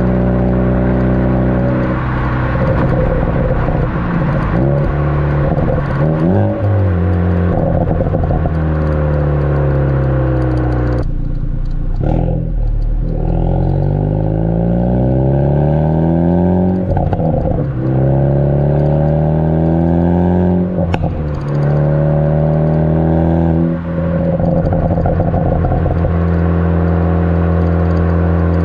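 Ford Focus ST's turbocharged four-cylinder through a Borla cat-back exhaust, heard right at the tailpipe while driving: it holds steady revs, rises as it speeds up, and falls away in long glides as it slows. A couple of sharp cracks come off throttle from the pops-and-crackles tune.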